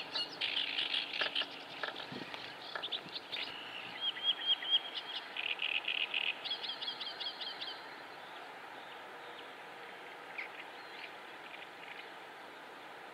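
Mallard ducklings peeping: many short, high calls, some in quick runs, busy for about the first eight seconds, then only a few faint peeps.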